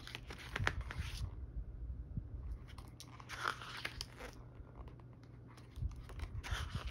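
Pages of an album photobook being turned by hand: paper rustling and sliding in three short bouts, at the start, around three to four seconds in, and near the end.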